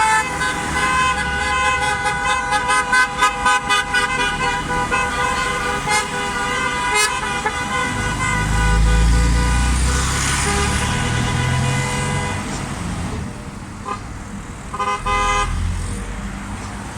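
Several car horns sounding at once, some held and some in rapid repeated toots, over road traffic. About eight seconds in a passing vehicle's low rumble takes over, and a few short horn toots follow near the end.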